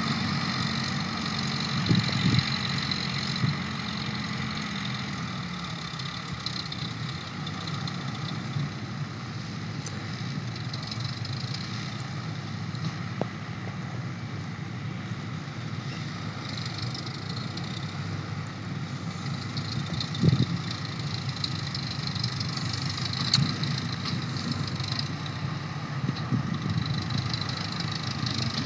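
Engines of a Thai-built sugarcane harvester and its tractor running steadily as they work the cane, with a few sharp knocks, the loudest about twenty seconds in.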